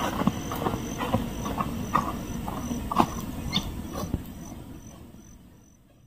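Footsteps and rustling through grass, irregular soft knocks that grow fainter as the walker moves off. Behind them an insect chirps steadily, a high-pitched pulse about twice a second. The whole sound fades out near the end.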